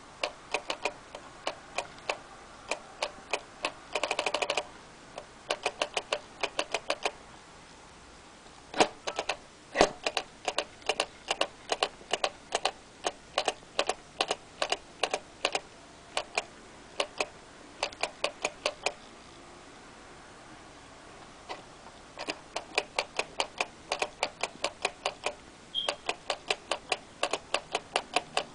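Sharp plastic clicks from a small ticking toy figure, coming in quick irregular runs of several a second. There is a dense flurry about four seconds in and a couple of pauses of a second or more.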